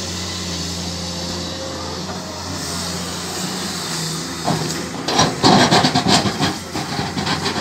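Komatsu PC210-10 hydraulic excavator's diesel engine running steadily, then from about five seconds in a rapid series of loud crunches and clatter as the steel bucket digs into rock.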